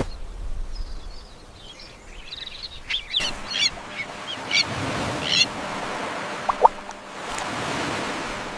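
Wild birds chirping: several short chirps over a steady wash of outdoor noise, with two brief whistled notes a little past the middle.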